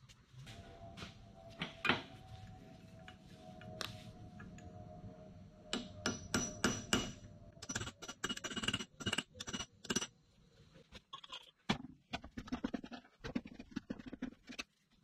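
Steel hand tools clinking and tapping on the metal parts of a rear differential: scattered knocks, then a run of quick, ringing metal taps from about six to ten seconds in, then softer knocks.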